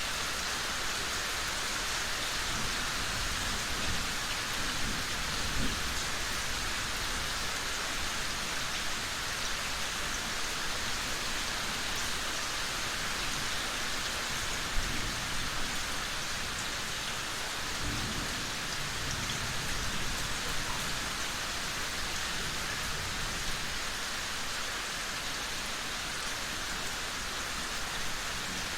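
Steady, dense rainfall hissing evenly, with two low rumbles of distant thunder, the first a few seconds in and the second a little past the middle.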